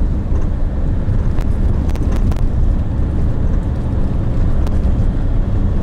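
Steady low road and engine rumble of a car driving along, heard from inside, with a few faint clicks in the middle.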